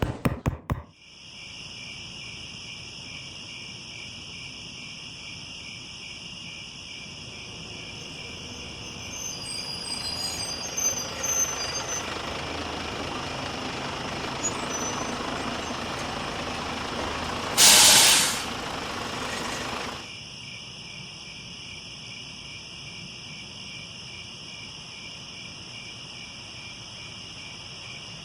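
Crickets chirping steadily throughout. Partway through, a truck's engine runs for about ten seconds, with a loud air-brake hiss near the end before the truck sound stops. A few sharp clicks at the very start.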